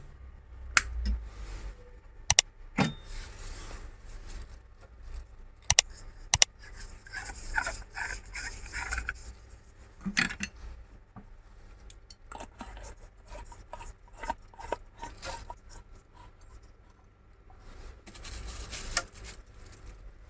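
Handling noises from the repaired LED lamp and test gear being set up: a few sharp clicks in the first seven seconds, with scraping and rubbing between them and again near the end.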